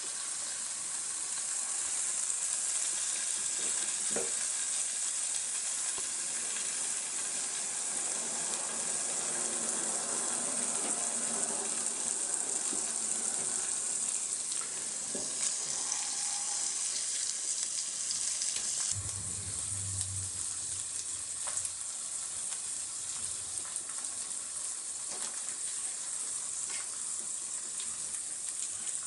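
Chicken frying in a pan, a steady sizzle throughout, with a few light knocks, most likely from a utensil against the pan.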